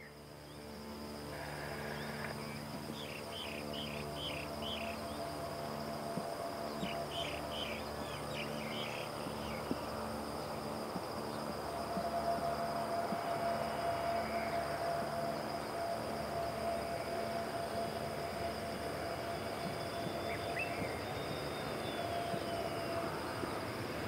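Airbus A321neo jet approaching to land, its engine noise building slowly with a steady whine joining about halfway, over a constant high-pitched insect drone; bird chirps come in two short bursts early on.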